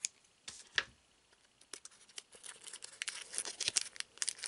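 Scissors clicking a few times on a foil trading-card booster pack, then the foil wrapper crinkling and crackling as the pack is pulled open. The crackle builds in the last couple of seconds.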